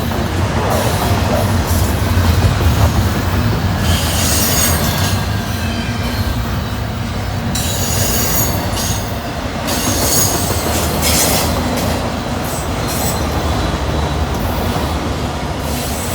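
Freight train cars rolling past with a steady low rumble, broken by short bursts of high wheel squeal about four seconds in and again around eight and ten seconds.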